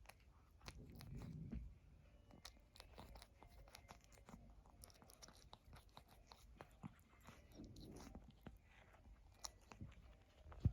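Faint scratchy crackling and clicking of a Ragdoll cat's fur being groomed, in quick irregular strokes, with a low rumble swelling about a second in and again near the eighth second.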